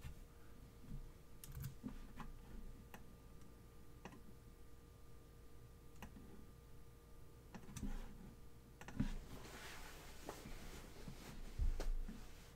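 Scattered single clicks and taps of a computer mouse and keyboard, a few each second at most, over a faint steady hum.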